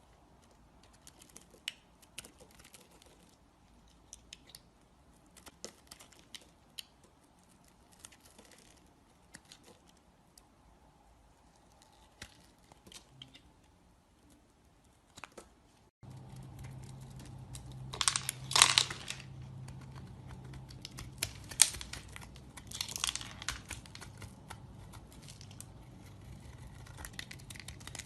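A knife carving a bar of soap: scattered crisp clicks and short scraping cuts. About halfway through, a steady low hum comes in underneath, and soon after come the loudest, longer scraping cuts.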